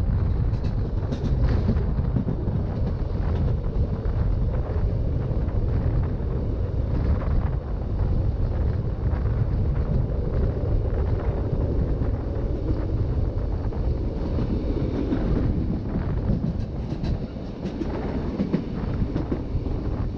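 Rhaetian Railway ABe 8/12 "Allegra" electric train running along the track: a steady low rumble of wheels on rail with a few faint clicks, and wind buffeting the microphone.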